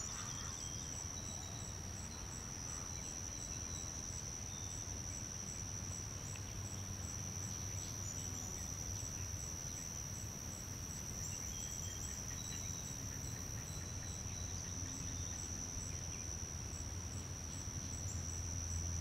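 Steady high-pitched insect drone held at one pitch throughout, with a faint ticking about twice a second above it and a low rumble underneath.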